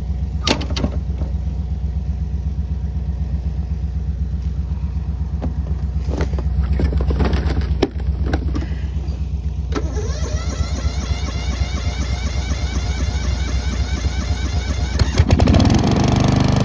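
Riding lawnmower's small engine running on a cold start, a steady pulsing note with a few short knocks. It grows louder about fifteen seconds in.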